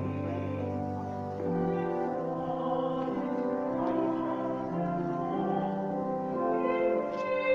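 Pipe organ playing slow, held chords that change every second or so.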